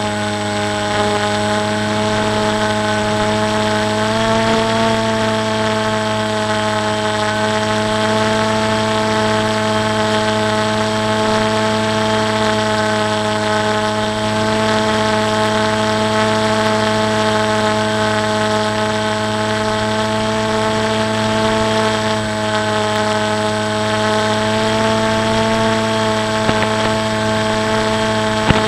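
Electric motor and propeller of a FliteTest Blunt Nose Versa Wing in flight, heard from its onboard action camera: a steady hum over rushing air. The pitch lifts slightly about four seconds in and again a few seconds before the end as the throttle changes.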